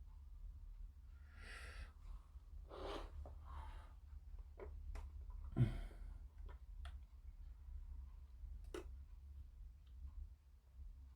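Small plastic model-kit parts and tools being handled on a work surface: faint rustles, a few sharp clicks and one soft thump about halfway through, over a low steady hum.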